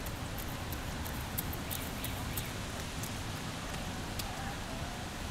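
Wet city street ambience: a steady low traffic rumble with scattered small ticks.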